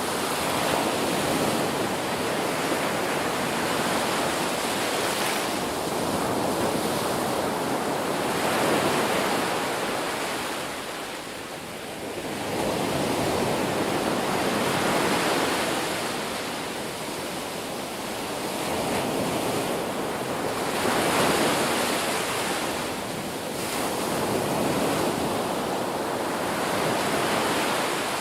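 Ocean surf: waves breaking and washing in, a continuous rushing noise that swells and falls back every few seconds.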